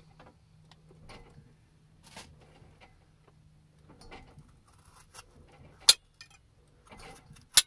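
A knife cutting around the stem of a green bell pepper: small crisp cutting and crunching noises, then two sharp clicks near the end.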